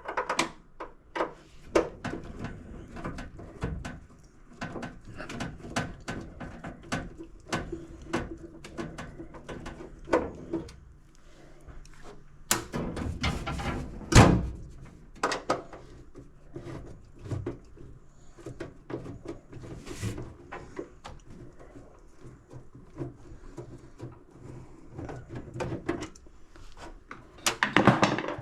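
Scattered knocks, clicks and clatter of tools and parts being handled, with one loud knock about fourteen seconds in.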